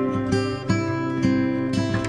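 Background music led by a strummed acoustic guitar, with held chords struck again every fraction of a second.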